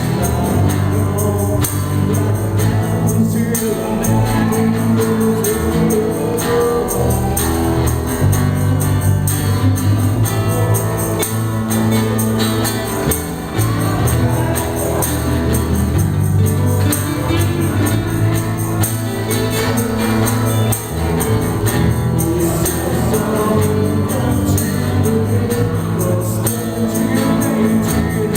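Live acoustic band playing: acoustic guitars and a cajón keeping the beat, with singing over them.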